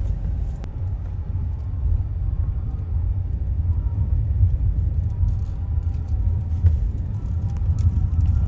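Car in motion, a steady low rumble of engine and road noise heard from inside the cabin.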